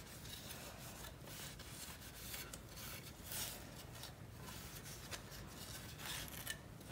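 Microfiber cloth rubbing over a ceramic-coated forged carbon fiber trim piece as it is buffed, in faint, irregular strokes.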